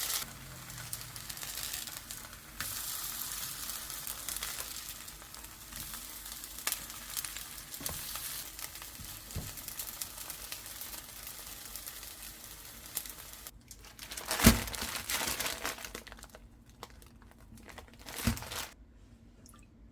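Food sizzling in a frying pan with a steady hiss that stops abruptly about two-thirds of the way through. A sharp knock follows, the loudest sound here, and another comes a few seconds later.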